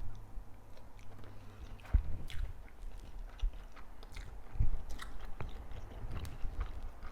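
Close-miked eating sounds: a person biting and chewing food, with a run of short wet mouth clicks and a few louder low thuds, the strongest about two seconds and four and a half seconds in.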